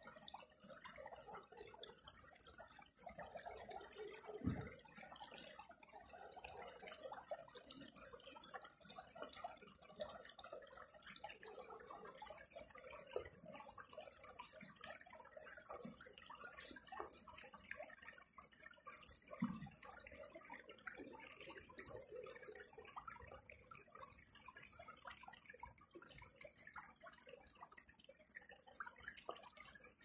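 Faint trickling and dripping of a shallow stream flowing over stones.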